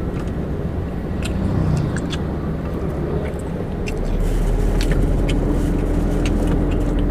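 Steady low hum of a car heard from inside the cabin. It grows louder about four seconds in, when a steady mid-pitched hum joins it. Scattered small clicks and rustles sound over it.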